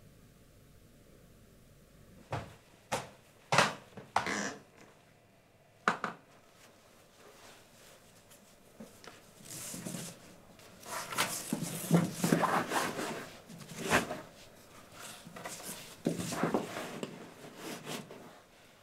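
A few sharp knocks and thumps, then a long stretch of rustling and shuffling with occasional thumps: a thick rope and clothing being handled on a wooden floor.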